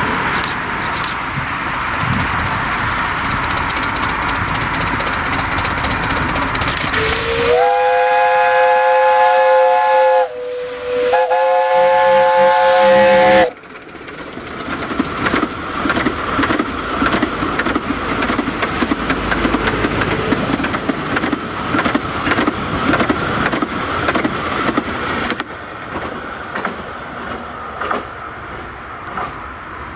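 Narrow-gauge steam locomotive approaching with a steady rumble and hiss. About a quarter of the way in its whistle sounds a long blast that rises onto its note, dips briefly, sounds again and cuts off sharply. Its train of coaches then rolls past with rapid wheel clatter, fading as it goes.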